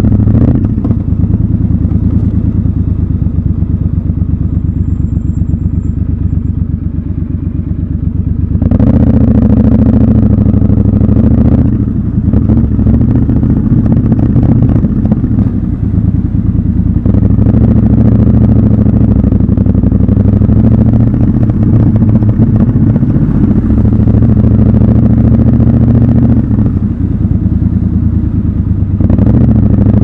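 Triumph Scrambler 1200 XC's parallel-twin engine running at low speed under way. It swells louder with opened throttle for a few seconds about nine seconds in, then settles, and rises briefly again near the end. The later part is heard inside an underground car park.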